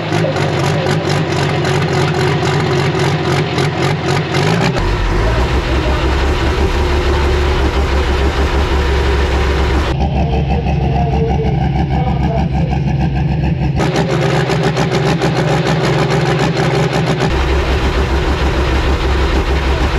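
Pro stock pulling tractor's diesel engine running at low speed. The sound changes abruptly several times as the footage cuts between camera positions.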